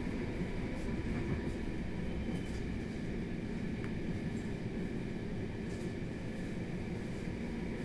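ÖBB class 4020 electric multiple unit running along the line, heard from on board: a steady rumble of wheels on rail with a faint, even whine and a few light clicks.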